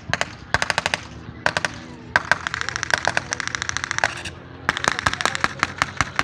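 Staged machine-gun fire for a mock aerial battle: short strings of rapid shots, then a long dense rattle from about two seconds in and another from about four and a half seconds, over a steady low drone of aircraft engines.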